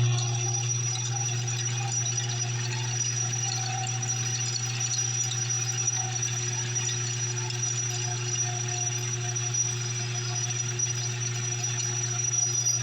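Home-built metal lathe running steadily, driven by a treadmill motor through a belt: a steady low hum with a thin high whine above it.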